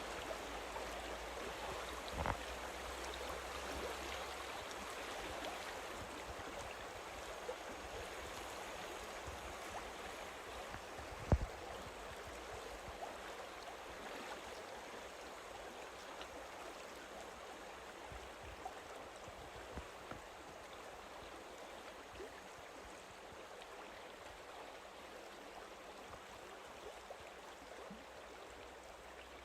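River water running and swirling steadily, slowly growing quieter, with a short low thump about eleven seconds in.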